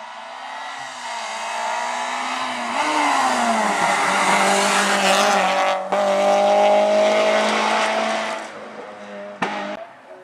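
Peugeot 106 S16 rally car's four-cylinder engine at high revs, getting louder as the car comes on, its pitch shifting with a gear change. About six seconds in the sound cuts sharply to another loud high-revving pass that then fades away.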